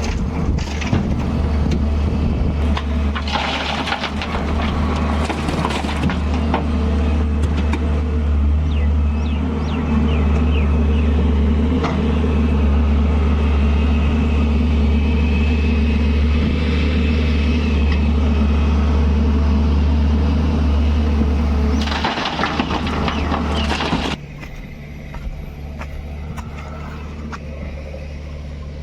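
A heavy vehicle engine running steadily with a strong low hum, stepping up slightly about 10 seconds in, then dropping sharply in level about 24 seconds in.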